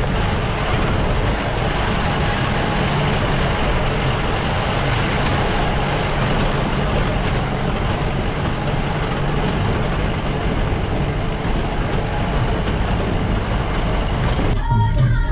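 Jeep driving on a rough mountain dirt road: engine running with loud, steady road and tyre noise, cut off near the end.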